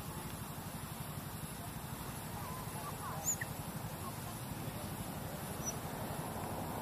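A few short, faint high squeaks and chirps, clustered around the middle, with one sharp rising chirp about three seconds in, over a steady low rumble like distant traffic.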